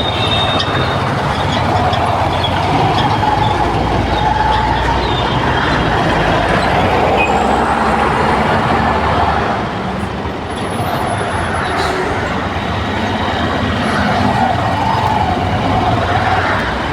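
Heavy road traffic: a steady, loud rumble of engines and tyres, easing slightly about ten seconds in.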